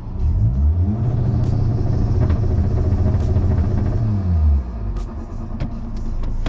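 Big-turbo 2.0 TDI (CJAA) diesel engine revved up from idle, held at a steady pitch on the two-step launch limiter for about three seconds, then dropped back to idle, heard from inside the car's cabin.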